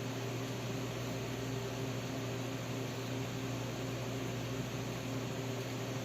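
Steady mains-frequency hum of running machinery with an even fan-like hiss, unchanging throughout.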